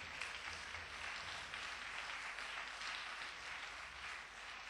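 Congregation applauding: steady, fairly quiet clapping from many hands.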